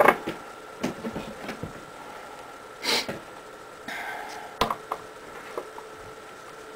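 Hand-handling sounds of electrical tape being worked around a plastic pepper shaker: scattered small clicks and rustles, a short breathy hiss about three seconds in, and a rustle ending in a sharp click just past the middle.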